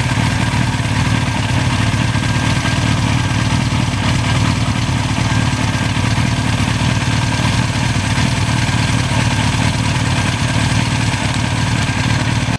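1982 Suzuki GS1100E's air-cooled inline-four engine idling steadily, with no revving.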